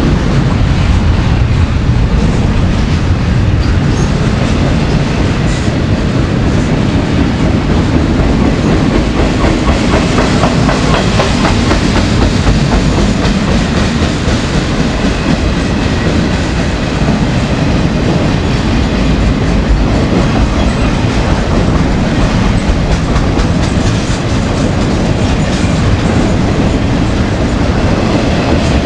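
CSX intermodal freight train rolling past, its container and trailer cars' wheels clicking steadily over the rail joints.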